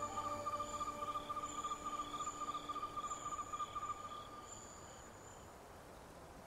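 Crickets chirping in a fast, even trill with higher insect chirps over it, under the last held notes of music, all fading out by about five seconds in and leaving only faint hiss.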